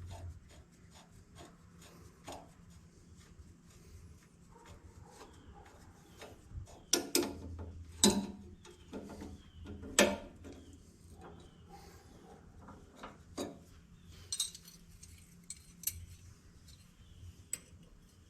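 Hand tools clinking and scraping against metal parts of a tractor engine as fittings are worked loose. There are scattered light clicks and a few sharp metallic clanks about seven, eight and ten seconds in.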